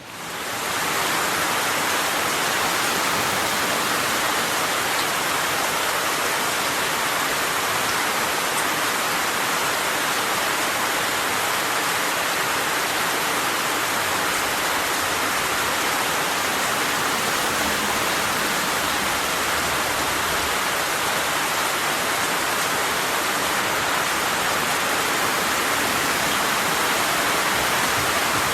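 Steady rain falling as an even, continuous hiss in which no single drops or other events stand out. It fades in over the first second.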